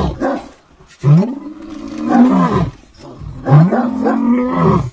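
Kangal shepherd dog giving long, deep roaring calls three times, each call rising and then falling in pitch.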